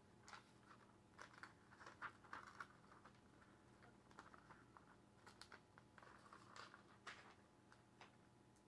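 Faint rustling and small tearing of a sheet of spiral-notebook paper as its ragged binding edge is picked and torn off by hand, heard as an irregular string of short crinkles and ticks.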